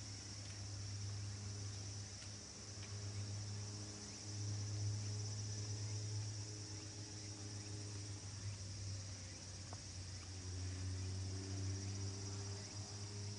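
Insects chirring in a steady high-pitched buzz, over a low steady hum.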